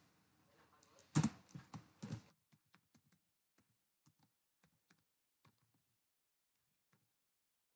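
Typing on a computer keyboard: a quick run of louder keystrokes in the first couple of seconds, then lighter, separate key taps about twice a second that die away about seven seconds in.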